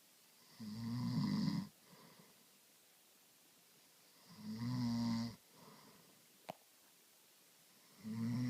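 A person snoring heavily in sleep: three long, rough snores about three and a half seconds apart, the last starting near the end. A single small click sounds between the second and third.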